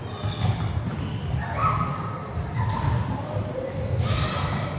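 Echoing sports-hall din during a children's volleyball game: girls' high-pitched calls and shouts, over a steady low rumble of thuds from balls and feet on the wooden floor.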